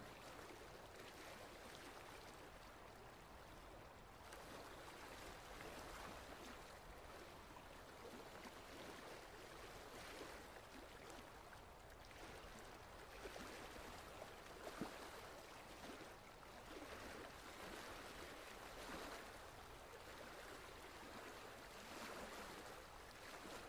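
Faint small waves lapping at a muddy pond bank, swelling and easing every few seconds, with one brief click about fifteen seconds in.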